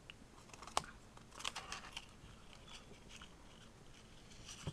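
Fingers handling a small folded paper tag on a compact digital camera: a sharp click a little under a second in, then crinkly rustling of paper and a few light ticks.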